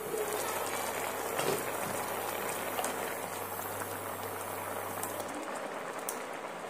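Potato curry gravy boiling hard in an open wok: a steady bubbling and spluttering that gets louder right at the start as the glass lid comes off.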